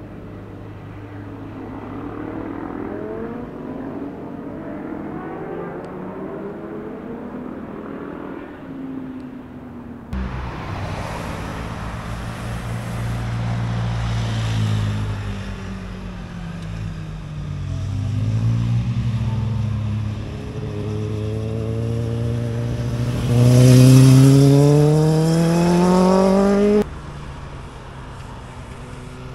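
Motorcycle engines passing through tight hairpin bends, their pitch rising and falling as the riders shift and accelerate. Near the end one engine is loud and climbs steadily in pitch under acceleration, then cuts off abruptly.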